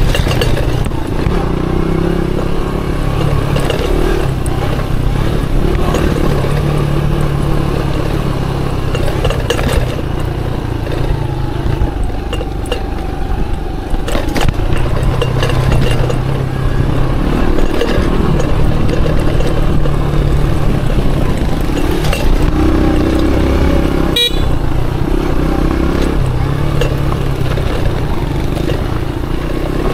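Aveta Ranger Max cub-cross motorcycle engine running under way on a dirt trail, its note rising and falling as the throttle changes. A single sharp click is heard late on.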